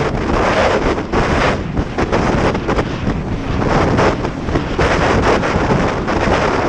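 Heavy wind buffeting the microphone over the rush of water, with a Yamaha XLT1200 WaveRunner's three-cylinder two-stroke engine running underneath as it crosses choppy sea.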